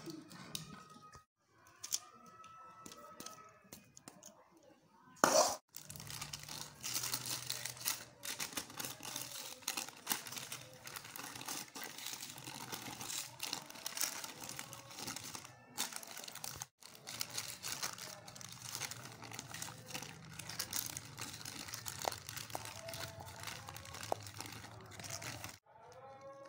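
Sheet of paper crinkling and rustling as hands press and shape a soft coconut sweet mixture on it, with one sharp knock about five seconds in.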